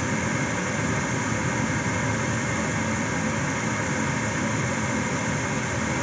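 Gas furnace's draft inducer fan running steadily, a constant rush of air with a faint hum.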